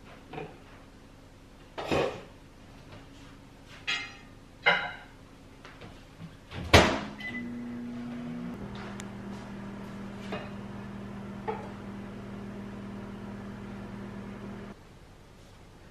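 Dishes clinking, then a microwave oven door shutting hard, a short beep, and the microwave running with a steady hum for about seven seconds before it stops abruptly.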